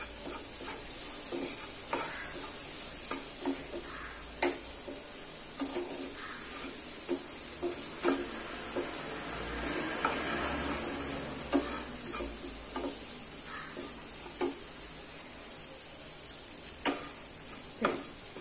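Chopped okra frying in a pan with a steady high sizzle. A spatula stirs it, scraping and knocking against the pan at irregular intervals. The stir-fry is in its last minute or so of cooking.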